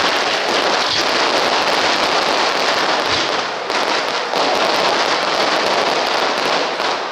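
Aerial fireworks crackling: a dense, continuous patter of many small rapid reports, dipping briefly about halfway and thinning near the end.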